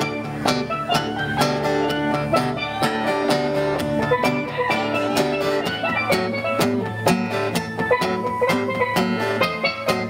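Steel pan playing a melody of quick, ringing struck notes over acoustic guitar strumming, during an instrumental break with no singing.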